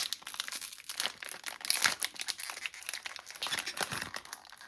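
Plastic packaging bag crinkling and crackling in the hands as it is opened, a dense run of quick sharp crackles.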